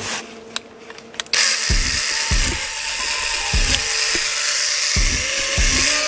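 REDVERG cordless brushless mini chainsaw starting after a couple of clicks about a second in, then running with a steady high whir as it cuts a thin branch, with several short low thumps.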